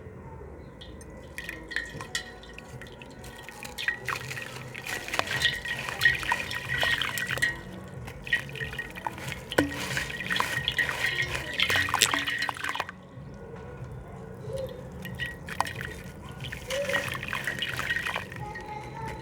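A gritty slab crumbling in water, with dense crackling and small splashes and drips as pieces break away. It comes in bursts of a few seconds, with a quieter stretch about two thirds of the way through.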